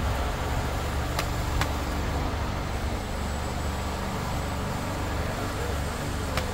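Paintball markers firing short sharp pops: two about a second in and a quick few near the end, over a steady low rumble.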